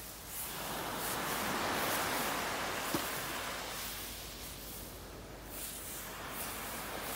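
Small waves breaking and washing up a sandy shore: one wash swells about half a second in and fades away by about five seconds, and the next one rises near the end.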